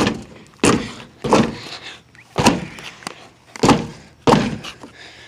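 Car door slammed repeatedly onto a carrot held in a rubber glove in the door gap, six sharp slams at uneven intervals.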